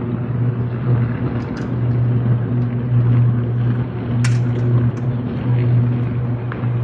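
Electrical arcing fault at a burning power substation: a loud, steady low buzz with a stack of overtones, the grid-frequency hum of a sustained arc, with a few sharp cracks over it.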